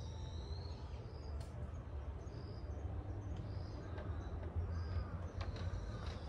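Open-air ambience: a steady low rumble with short, high chirps repeating about once a second from a small bird or insect. A few faint clicks come near the end.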